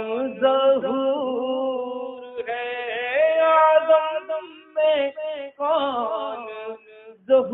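A man singing a naat with long, wavering melismatic held notes, breaking off briefly a few times.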